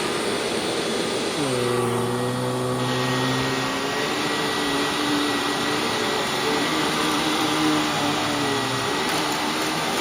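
Hoover WindTunnel Widepath upright vacuum cleaner running steadily. About a second and a half in, a lower hum joins the rush of air, dips slightly, then holds with small wavers.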